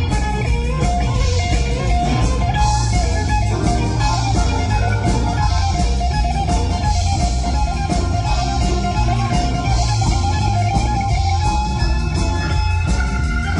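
Live rock band playing, an electric guitar carrying the melody over bass and drums.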